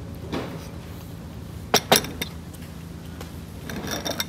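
Tableware clinking during a meal: two sharp clinks close together about two seconds in, then a lighter one, with softer handling sounds of food and dishes around them.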